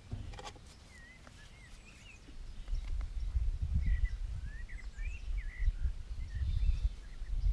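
Wild birds chirping in short phrases that rise and fall in pitch. From about two and a half seconds in, a louder, uneven low rumbling and bumping comes from a rabbit brushing against the camera set low in the grass.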